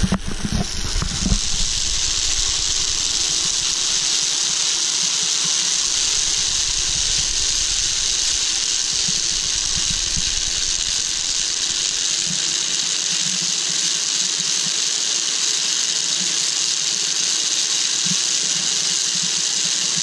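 Wind rushing over a handheld action camera's microphone on a moving sky cycle high on its cable: a steady hiss, with low gusty buffeting that comes and goes in the first half.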